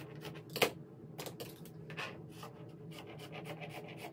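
Scissors snipping through thick woven tapestry blanket fabric as excess is trimmed off, a rapid run of crunchy cuts, with one louder snip just over half a second in.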